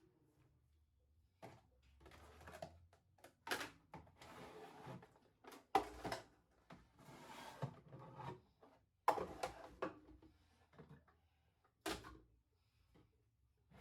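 Kitchen cupboards and their contents being handled during cleaning: scattered knocks and clatter, about five sharp ones, with short stretches of rubbing or shuffling between them.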